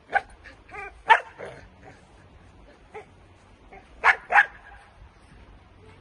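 Young Dutch Shepherd giving short yips and barks, a handful of separate calls with the loudest pair about four seconds in.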